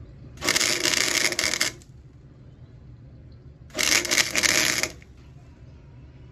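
Welder laying two spot welds on a car's quarter-panel sheet metal: two bursts of crackling arc, the first about a second and a half long, the second about a second, with a steady low hum underneath.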